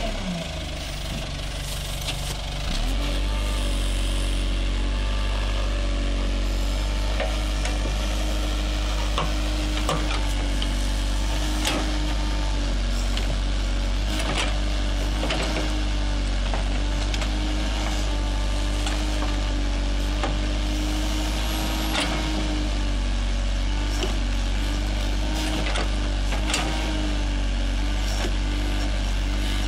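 JCB Sitemaster backhoe loader's diesel engine working under load as the backhoe digs. It dips at the start and picks up about three seconds in, then runs steadily with slight wavering. Scattered sharp cracks and snaps come as the bucket tears a shrub out by its roots.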